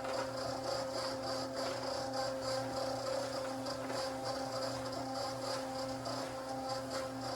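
Small portable concrete mixer running with a steady motor hum and a regular rattle from the turning drum.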